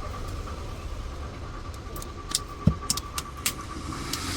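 Small sharp clicks and taps of a screwdriver and screws on a phone's frame as the screws are put in and tightened, about six clicks in the second half, over a steady low hum and a faint steady high tone.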